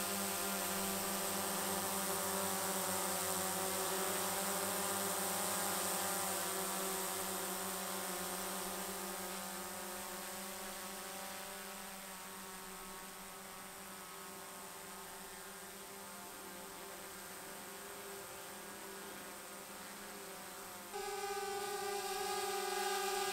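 Small folding camera quadcopter flying, its motors and propellers giving a steady multi-tone hum that fades gradually. Near the end a louder drone hum at a different pitch cuts in abruptly.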